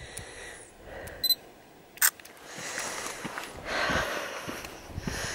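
A camera's short electronic beep about a second in, then a sharp shutter click, followed by soft footsteps on a dirt track.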